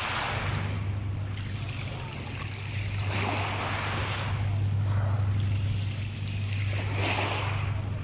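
Small waves washing up and back over a pebble beach, a hiss of water over stones swelling about every three to four seconds, over a steady low hum.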